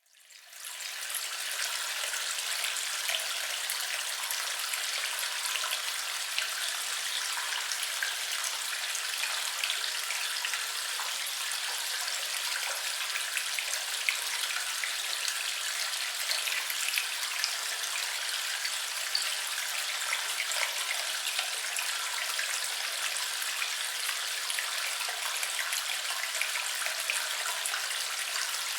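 Running water flowing steadily: an even, high hiss with small splashing spatters throughout, fading in over the first second.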